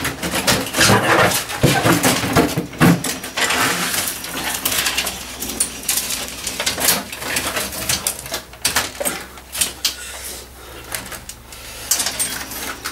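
An Indiana Jones pinball machine's playfield being slid back and lifted out of its wooden cabinet: repeated knocks, rattles and scrapes of wood and loose parts. They are densest in the first few seconds and sparser near the end.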